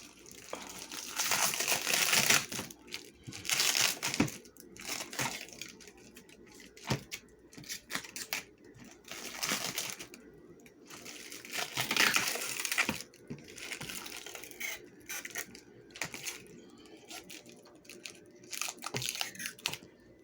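Plastic packaging crinkling and rustling in repeated bursts as it is handled and pulled off, with a couple of sharp knocks.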